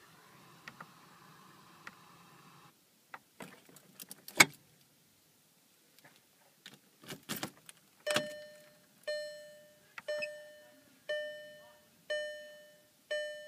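A faint hum stops abruptly a few seconds in, followed by scattered clicks and one sharp click. From about eight seconds in, a 2013 VW GTI's electronic warning chime sounds about once a second, each chime a ringing tone that fades away.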